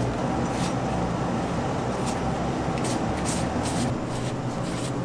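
Quick scratchy strokes of a small stiff-bristled brush scrubbing across a rubber boot sole, mostly in the second half, over a steady workshop hum.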